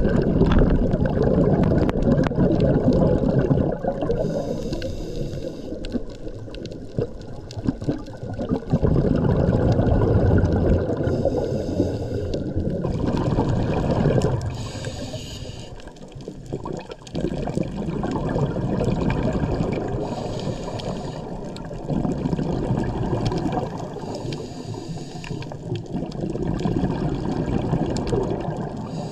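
Underwater water noise through a camera's housing: a rushing, unpitched wash that swells and ebbs, dipping quieter a little past the middle, with short faint hissing passages every few seconds.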